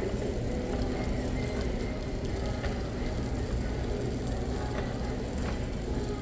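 Steady low rumble of indoor store ambience, with faint scattered clicks and brief faint tones over it.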